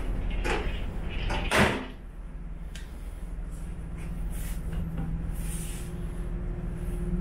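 Steady low hum of a ferry's engine, with a loud clunk about one and a half seconds in and a couple of lighter knocks just before it.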